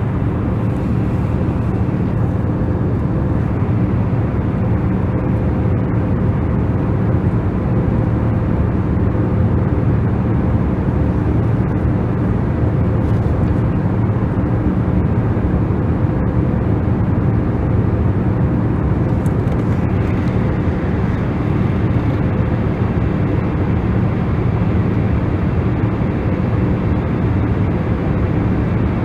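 Steady, unchanging noise for sleep and relaxation, a deep rumbling hiss weighted toward the low end with a faint steady hum running under it.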